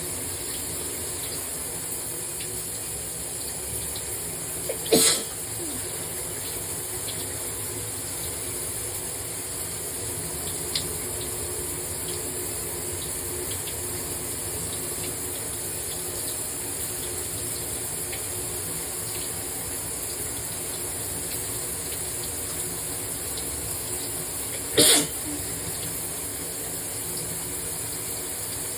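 Shower spray running steadily. Two sharp sneezes cut through it, one about five seconds in and another near the end.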